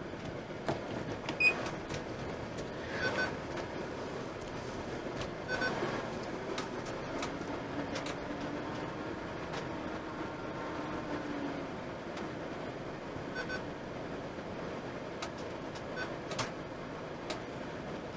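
Camping-car engine running at low speed, heard from inside the cab while the motorhome is manoeuvred into a parking spot, with a low tone rising and falling gently midway through. Scattered light clicks and ticks from the cab come and go.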